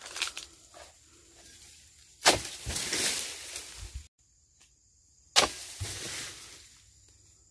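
Long-handled oil palm pruning chisel striking the base of palm fronds twice, each sharp strike followed by a second or so of fibrous crunching and tearing as the frond is cut away.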